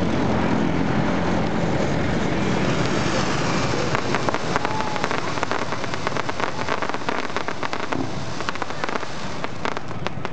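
Fireworks display going off: a continuous noisy wash of bursts, turning into a dense run of rapid crackles and pops from about four seconds in.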